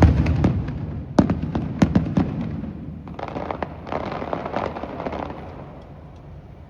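Fireworks going off: several sharp bangs with rumbling tails in the first couple of seconds, then a spell of dense crackling about three seconds in that dies away near the end.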